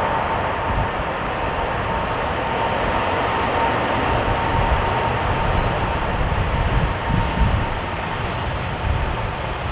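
Boeing 777's GE90 jet engines running at close range: steady, loud jet noise with a held whine and a low, uneven rumble.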